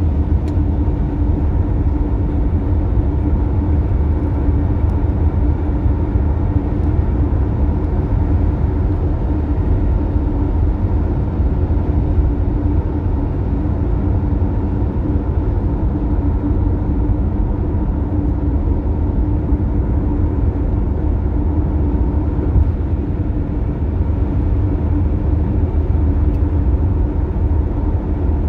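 Toyota Tercel at steady highway speed: a constant low rumble of road and engine noise with a steady droning hum on top, the abnormal noise the car makes at highway speed.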